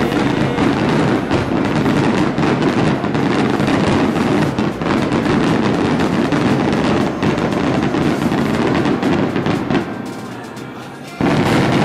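Fireworks display: a dense, continuous barrage of bangs and crackling shells. It thins out about ten seconds in, then a sudden loud burst comes in near the end.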